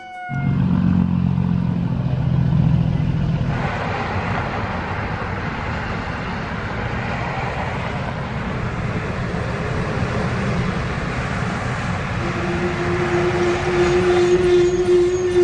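Heavy trucks and cars driving past: a low diesel engine rumble, then tyre and road noise that swells about three and a half seconds in and stays steady. A steady droning tone joins in the last few seconds.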